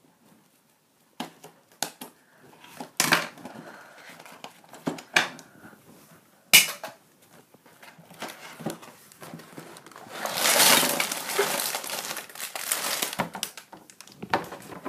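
A cardboard Lego box being opened and its contents tipped out: scattered knocks and scrapes of the box, with one sharp click about six and a half seconds in. Then the plastic parts bags crinkle loudly for about three seconds as they are handled.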